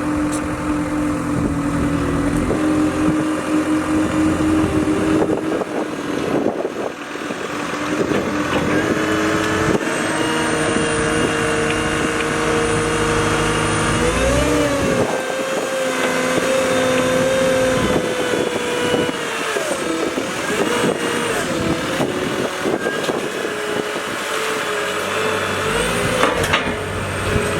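Diesel engine of a CAT 257B2 compact track loader running under load, its pitch rising about halfway through as it is throttled up and dropping back a few seconds later, with scattered clanks and knocks.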